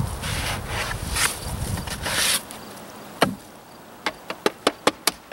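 A plastic cup scraping and scooping through wet Thermix chimney insulation mix in a plastic tub, for the first two seconds or so. Then, after a pause, one sharp knock and a quick run of about six sharp taps.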